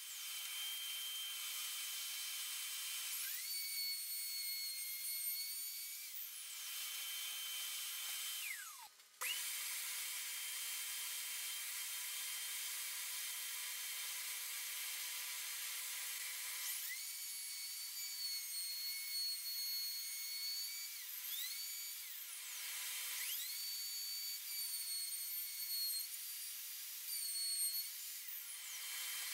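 Electric plunge router running at speed while routing a slot through plywood, a steady high whine. Its pitch sags and recovers several times. About 9 seconds in it winds down almost to nothing, then starts up again sharply.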